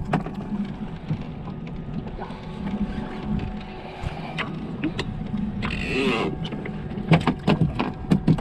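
Boat's outboard motor running steadily under way while following a hooked shark, with scattered knocks and clicks from the deck and tackle, and a short hissing rush about six seconds in.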